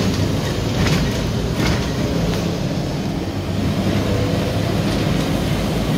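Steady low rumble of a bus's engine and running gear heard from inside the passenger cabin, with a few short rattles and knocks from the bodywork.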